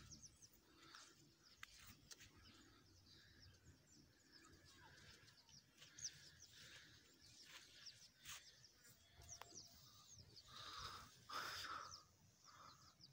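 Near silence in the open air, with faint scattered bird chirps. A short rush of hiss comes shortly before the end.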